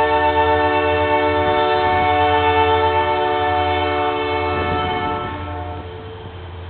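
Diesel freight locomotive's air horn sounding one long, steady chord, which cuts off about five and a half seconds in, over the low rumble of the passing train.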